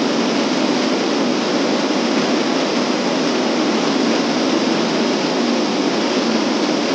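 Mountain stream rushing over boulders: a steady, loud, unbroken wash of water noise.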